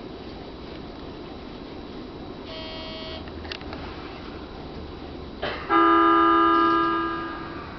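E231 electric train's horn sounded once before pulling away, a steady held tone of about two seconds that fades out, over the low hum of the stopped train. A short beep sounds a few seconds earlier.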